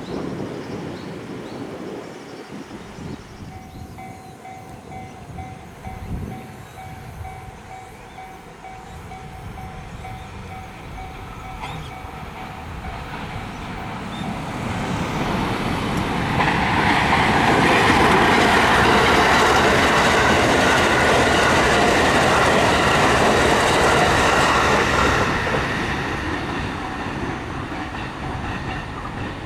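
A level-crossing warning bell rings in a fast, even pulse for several seconds. Then a train on the Hokuriku Main Line approaches and passes over the crossing, loudest for about ten seconds in the second half, and fades away near the end.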